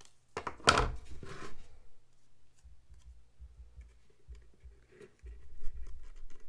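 Scissors snipping through thin cardboard, with one sharp cut less than a second in and a short rasp as the blades close. After that, light rustling and low bumps from the cardboard piece being handled against a hollow paper mache shell, loudest near the end.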